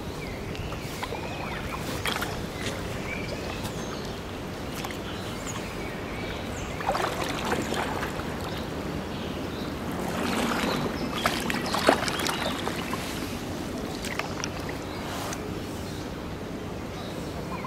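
Small inflatable boat moving through floodwater: steady sloshing and lapping of water around the hull, with scattered splashes and knocks, the sharpest about twelve seconds in.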